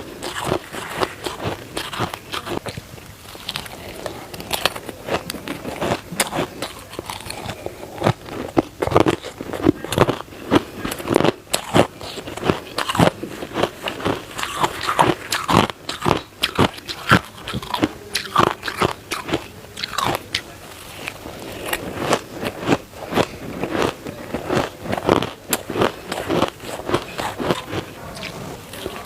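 Close-up biting and chewing of crisp, dry crushed shaved ice: a dense run of sharp crunches and crackles, many to the second.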